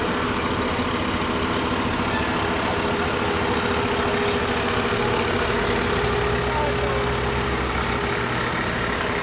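Fire engine pumper's diesel engine running at a slow crawl as the truck drives past close by. Its low engine drone grows stronger over the last few seconds as the truck comes alongside.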